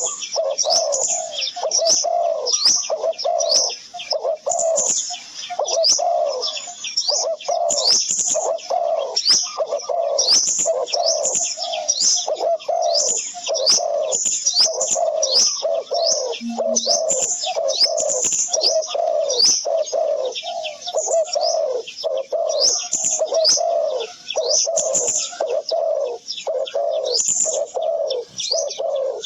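Continuous bird calls: a low call repeated over and over, with many quick, high, falling chirps layered above it.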